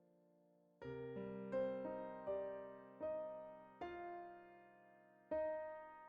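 Soft background piano music: a held chord fades out, then gentle notes and chords are struck one after another, each dying away.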